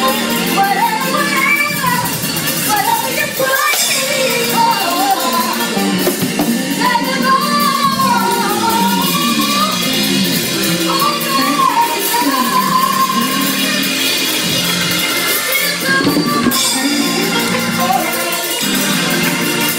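A woman singing into a microphone with keyboard accompaniment, her voice sliding and bending through long held notes.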